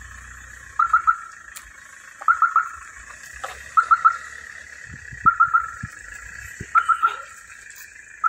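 A bird calling a quick three-note phrase, repeated about every second and a half, over a steady drone of insects.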